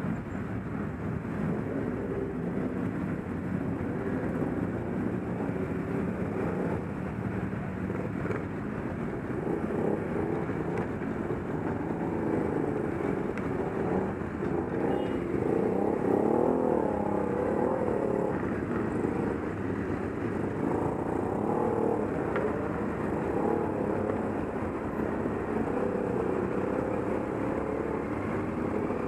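Motorcycle engines running in a group ride, a steady engine drone with the pitch rising and falling through the middle as bikes pull away and change speed.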